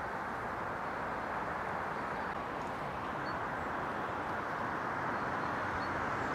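Steady outdoor background rush with no distinct events, rising slightly in level.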